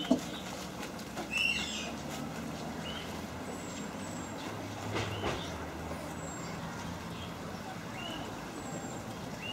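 Outdoor ambience: a steady low rumble, as of distant traffic, with short high chirps of birds every second or two.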